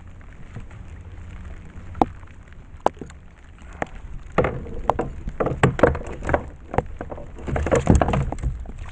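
Rain falling steadily on the sea and the kayak. Scattered sharp knocks come early, then two bursts of clattering knocks and splashes in the second half.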